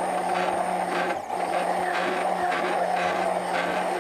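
Electric hand blender running steadily in a jug, puréeing figs with yogurt, with a brief dip in its sound about a second in.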